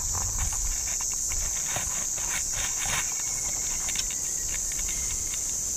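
Steady high-pitched drone of insects in the riverside bush, with scattered light clicks and ticks over it.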